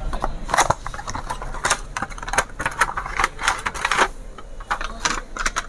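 Irregular clicks, taps and rattles of small boxed items being handled and set down, several a second and uneven.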